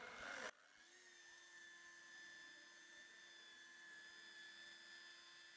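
Rotary car polisher spinning up and then running steadily with a faint, high, even whine as it works paste into the paint at a medium speed setting. A hiss cuts off abruptly about half a second in.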